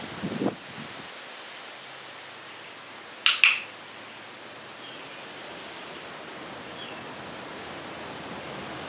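A dog-training clicker clicks once, a sharp double click-clack about three seconds in, marking the moment the dog places its front paws on the target, against a steady background hiss.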